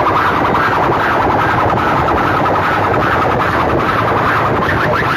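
Massed horn loudspeakers of a sound-system rig blaring at full volume. The sound is a loud, harsh, siren-like blare with a fast repeating warble, unbroken throughout.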